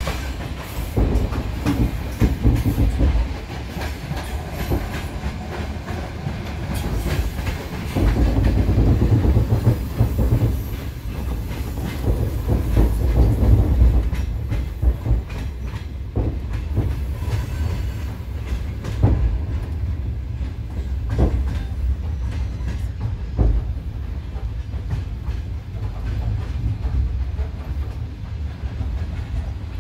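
Passenger sleeper carriage rolling along the track, heard from inside the corridor: a steady low rumble with the wheels clattering, louder in the first half. Separate knocks come every couple of seconds later on as the wheels cross rail joints and points.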